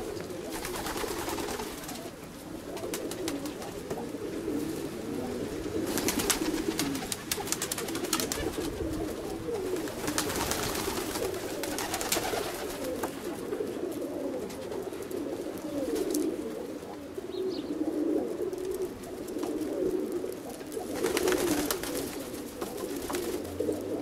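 A flock of domestic pigeons cooing continuously at close range. Several spells of clicking and rustling come through over the cooing.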